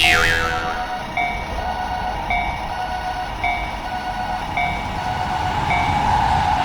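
Japanese level-crossing warning bell ringing its repeated kan-kan, a little under two strikes a second, while a train runs past, its noise growing toward the end. It opens with a sudden loud burst whose pitch falls away.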